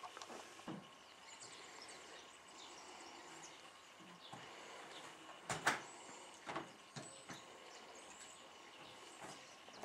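Knocks and clunks of a red jerry can being handled at a car's open boot and rear deck over quiet outdoor background: a sharp double knock about five and a half seconds in, then a few lighter clunks.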